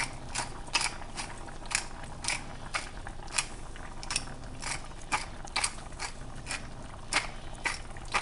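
Pepper mill being twisted by hand, its grinder clicking about three times a second as it cracks peppercorns.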